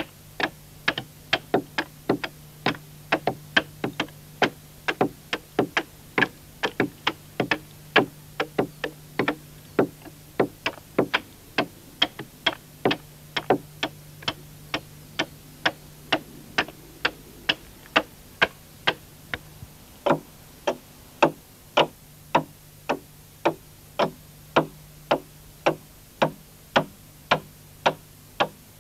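Hand axe chopping into an oak log in quick, even strokes, about two to three a second, each a short sharp knock: the final trimming of the hollowed hull of a dugout logboat.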